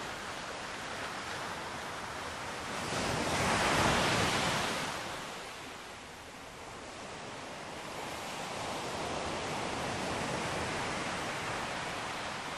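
Sea waves washing onto a shore: one wave swells and breaks about four seconds in, dies away, and a softer wash builds again toward the end.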